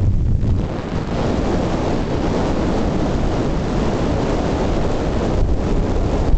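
Steady wind noise buffeting the microphone of a camera moving along a road, heaviest in the low end and with no break.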